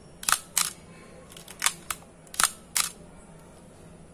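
Nikon FG 35 mm SLR being fired and wound by hand: sharp mechanical clicks of the shutter and mirror, and of the film advance lever. The loudest clicks come in two pairs about a third of a second apart, with lighter clicks between them.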